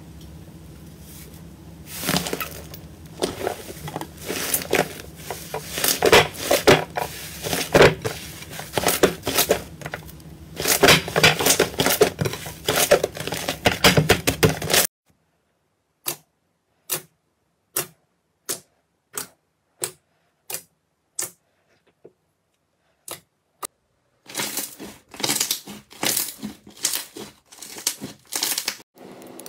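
Slime being squeezed and stretched by hand, crackling and popping with dense clicks. About halfway through it breaks into a dozen or so separate sharp pops with silence between, and the dense crackling returns near the end.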